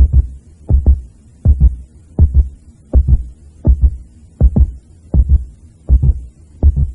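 Heartbeat sound effect: steady lub-dub double thumps, each a deep beat followed at once by a second, at about four heartbeats every three seconds.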